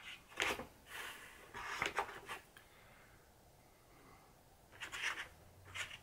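Turkey eggs handled in a pulp-cardboard egg carton: a few short, soft scrapes and taps of eggshell against cardboard, several in the first two seconds and two more near the end.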